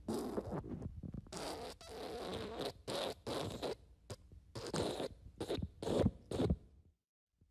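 Recorded fart sound effects: a run of sputtering, raspy farts of varying length, one after another, that stops abruptly near the end.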